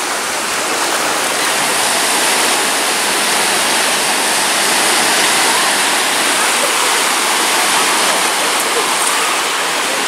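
Sea waves breaking steadily on a sandy beach: a continuous even wash of surf.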